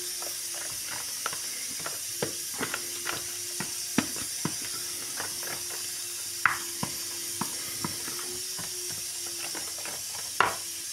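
A spoon stirring a thick yogurt and tomato-paste marinade in a plastic bowl: irregular clicks and taps of the spoon against the bowl, the loudest about six and a half seconds in and near the end, over a steady hiss.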